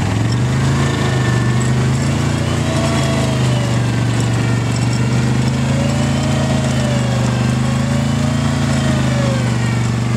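ATV engines running steadily under load as a bogged-down quad is towed out of deep mud by a second ATV, with a higher whine that rises and falls slowly.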